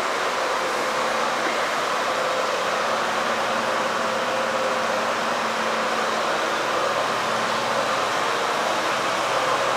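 Steady rushing noise with a faint low hum, unchanging throughout.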